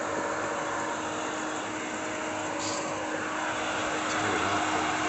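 Electric pool pump motor running: a steady hum with a thin whine over a constant hiss.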